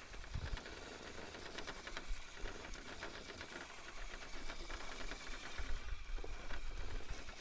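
A 1/10-scale RC rock crawler's small electric motor and gears running at low speed, with fine ticking and rattling from the truck working over rocks.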